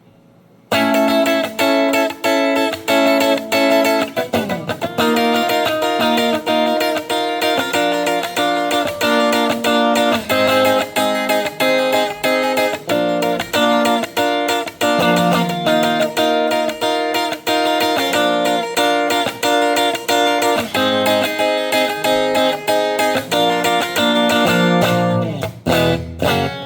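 Electric guitar played through a Mooer Ampero II multi-effects unit's native amp model and cabinet IR, a rhythmic forró-style riff of repeated notes and chords starting about a second in. It has a sliding note about four seconds in and another near the end.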